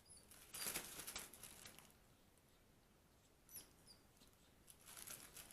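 Faint scrabbling and tapping of a baby monkey moving about on a tabletop, with two brief high squeaks, one at the start and one about three and a half seconds in.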